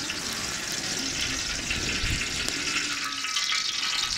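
Cooking oil heating in a large steel cauldron, with a steady hiss of early sizzling that grows a little louder about halfway through.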